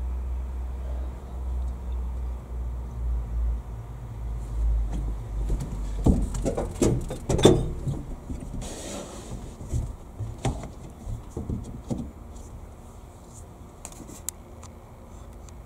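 Low rumble of a truck running, heard inside the cab, which stops about six seconds in. A run of clunks and clicks follows over the next several seconds.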